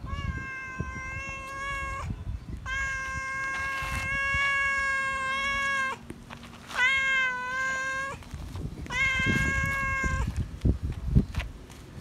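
Tabby-and-white feral cat meowing loudly for attention: four long, drawn-out meows, the second the longest at about three seconds, each holding a fairly steady pitch. Low rumbling and a few soft thumps of handling noise lie underneath, with the thumps near the end.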